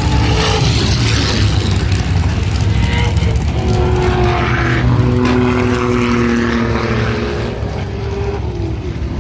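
A line of performance cars driving past one after another, engines and exhausts running loudly, with several overlapping engine notes shifting in pitch as they accelerate and pass.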